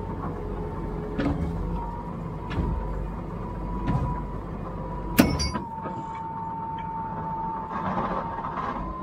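A tractor engine running steady with a high whine, under four sharp knocks. The last knock, about five seconds in, is the loudest, with a metallic ring.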